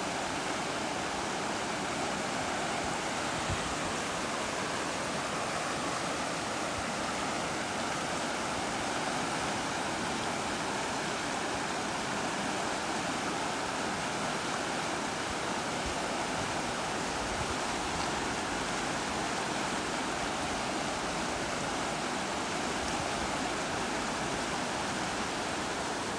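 River water rushing steadily over shallow rapids.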